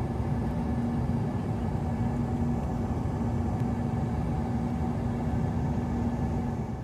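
Jet airliner cabin noise heard inside the cabin: a steady rush of engine and airflow noise with a constant low hum.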